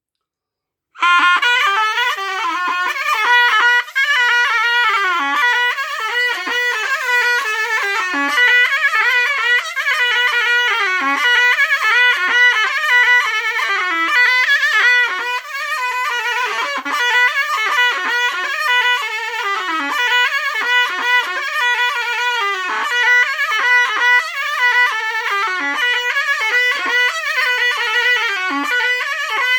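Zurna, a Turkish double-reed shawm, playing a fast, heavily ornamented melody with slides between notes, starting about a second in.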